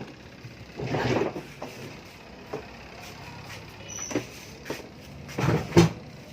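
Handling noise: a few short knocks and two louder scuffing, scraping bursts, one about a second in and one near the end, as things are moved about.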